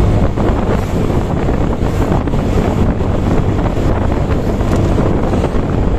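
Steady wind buffeting the microphone of a moving vehicle, with a low steady engine hum and road noise underneath.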